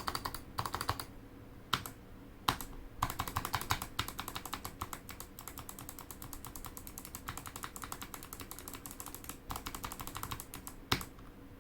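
Typing on an XD68 mechanical keyboard fitted with clicky Kailh Box White switches, its case padded with cotton wool to soften the sound. Short bursts and a few single keystrokes give way to a long, fast run of key clicks in the middle, then a last short burst.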